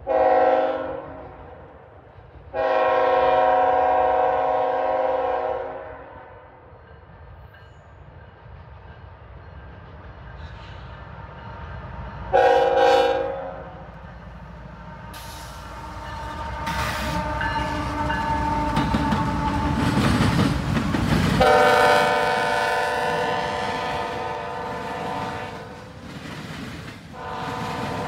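A CSX freight train's locomotive air horn sounds five blasts as the train approaches and passes: a short one, a long one of about three seconds, another short one, and two more long ones in the second half. Between the blasts the locomotive's heavy rumble builds to its loudest just before the fourth blast as it goes by. After that the freight cars roll past.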